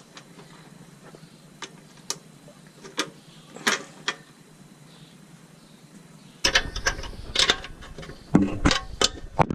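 Scattered clicks and knocks of tools and metal parts being handled while fitting motorcycle turn signals. About two-thirds of the way in, this gives way to a louder, busier clatter that cuts off suddenly at the end.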